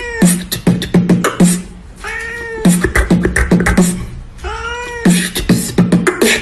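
A cat's meow, the same rising-and-falling call coming back about every two and a half seconds, set over a quick percussive beat that fills the gaps between meows, like a looped meow remix.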